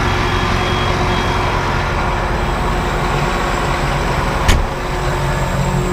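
Tractor engine running steadily, with one sharp clack about four and a half seconds in.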